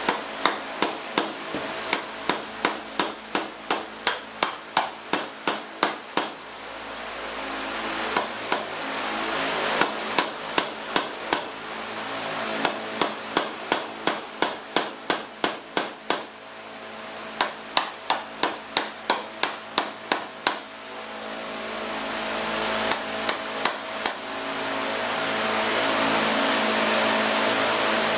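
Hammer striking a scooter's dented metal wheel rim to tap the dent out: runs of sharp metallic blows, two or three a second, broken by short pauses. A steady hiss fills the gaps and is loudest in the last few seconds, where there are no blows.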